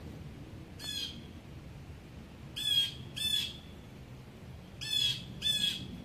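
Blue jay giving five short harsh calls: one about a second in, then two quick pairs.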